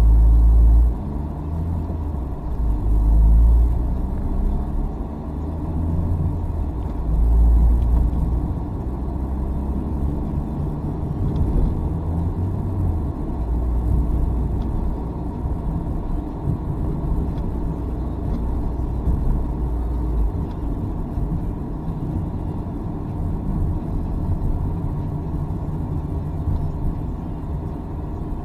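Car engine and road rumble heard from inside the cabin: the engine note rises as the car picks up speed over the first several seconds, with a few heavy low surges, then settles into a steady drone at cruising speed.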